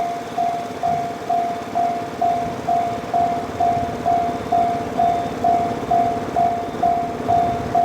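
Japanese level-crossing warning bell ringing, a repeated electronic tone struck a little over twice a second: the alarm signalling an approaching train.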